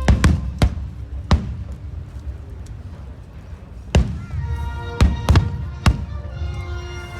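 Fireworks exploding in sharp booms, four in about the first second and a half, then four more between about four and six seconds in, over music.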